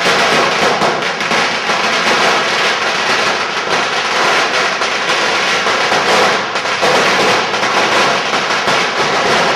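Loud, continuous crackling of many firecrackers going off at once, without a break, easing slightly about six seconds in.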